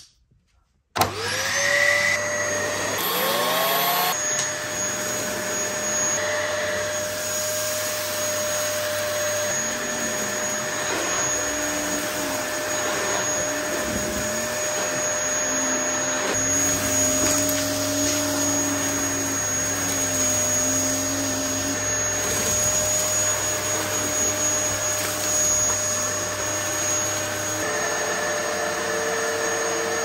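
Dyson DC08 cylinder vacuum cleaner switched on about a second in, its motor spinning up to a steady high-pitched whine and running while it picks up dust and grit from a carpet mat. Near the end its tone drops.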